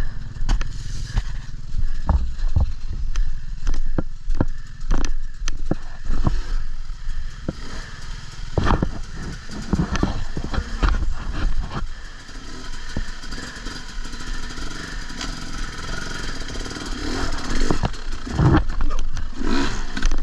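Off-road motorcycle engine running, with repeated clattering knocks and scrapes, most of them in the first half.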